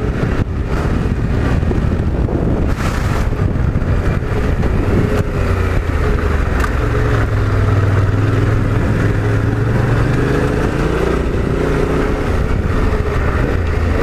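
Off-road motorcycle engine running under throttle while riding on loose gravel, its pitch wavering up and down as the throttle is worked, strongest and deepest around the middle.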